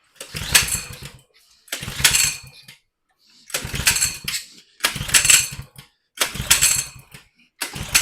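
Small single-cylinder minibike engine being pull-started over and over, six pulls of the recoil starter about a second each with short pauses between, the engine turning over without catching.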